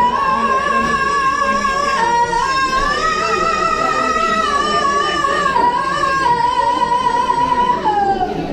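A song over a sound system, its singer holding one long, high, belted note with vibrato that steps up about three seconds in, drops back a few seconds later and slides down near the end.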